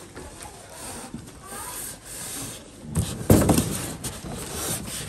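Rustling and scraping of cardboard, plastic film and foam packing as an air fryer oven is handled in its box, with a loud thump about three seconds in.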